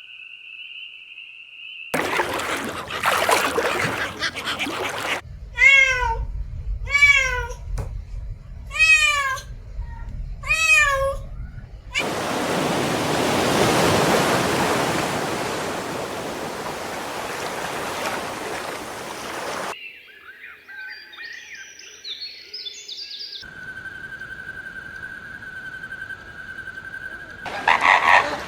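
A cat meowing four times, each call arching up and then falling in pitch. The meows sit among other short clips: a stretch of rough noise before them, a long steady hiss after them, then brief chirps and a steady tone.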